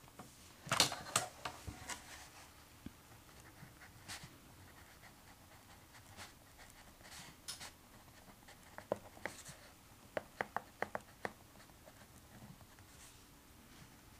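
Pen writing on paper, close to the microphone: scratchy strokes in scattered bursts, the loudest cluster about a second in, then a quick run of about eight short sharp ticks a little past the middle.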